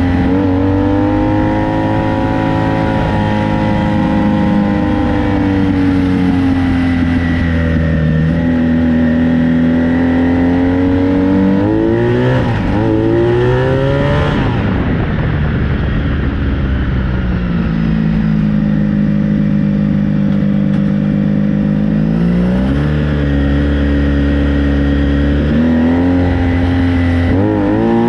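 Honda VF1000 V4 motorcycle engine in a home-built dune buggy, running steadily under load, its pitch slowly rising and falling. It is revved up sharply a few times, once near the middle and twice near the end.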